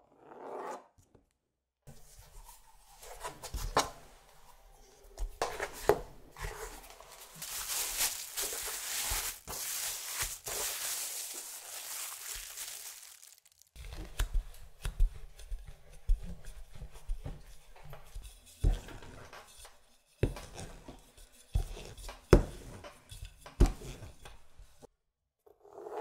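Hands working a sheet of laminated butter dough on a plastic cutting mat. First comes a long stretch of scraping and rustling, then a rolling pin rolls over the folded dough with repeated soft knocks and clicks.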